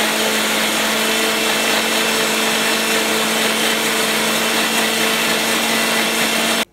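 Electric mixer grinder running at speed, blending peeled bush oranges and mint leaves in a little water in its plastic jar: a loud steady whirr over a constant motor hum. It cuts off suddenly near the end.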